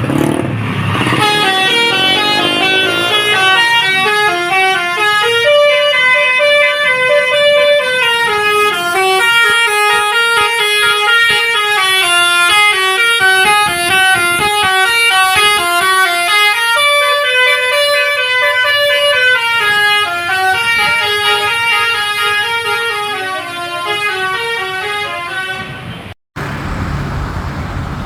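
Bus 'telolet basuri' multi-tone air horn playing a fast tune of stepped notes, changing several times a second. It cuts off abruptly near the end and gives way to a rumbling noise.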